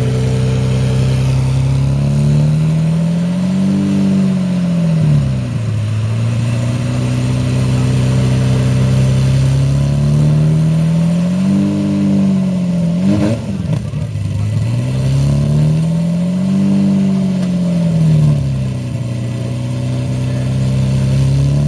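Lamborghini Murciélago's 6.2-litre V12 idling through its twin exhaust and revved gently a few times, each rev a smooth rise and fall in engine speed, with one quick sharp blip of the throttle about halfway through.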